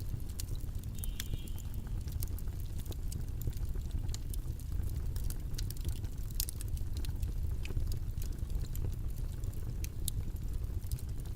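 Steady low rumbling background noise, the video's white-noise bed, with scattered light clicks and taps on top.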